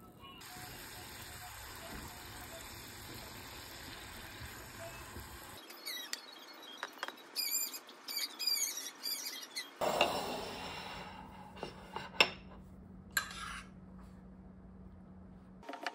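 Quiet tableware sounds across a few short clips: a run of short, high squeaks around the middle, then light clinks and one sharp knock of ceramic dishes.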